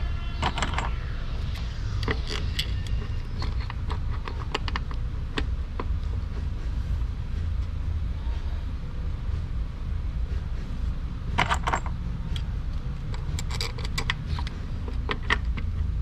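Clicks and light metallic rattles of a throttle body, its bolts and tools being handled and fitted back into a Chevy Cruze engine bay, in a cluster over the first few seconds and again from about eleven seconds in, over a steady low hum.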